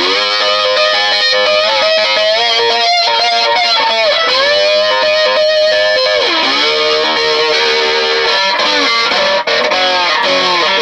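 Electric guitar played through an amp, ringing chords held and changed without a break. The pitch slides in places, most clearly a dip and return about six seconds in.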